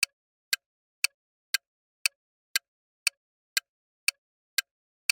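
Countdown timer sound effect: a clock-like tick repeating evenly about twice a second, counting down the answer time.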